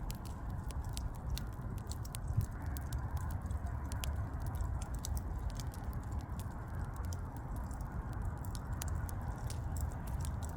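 Burning wood crackling: a steady low rumble of the flames with many small sharp pops and snaps scattered irregularly throughout.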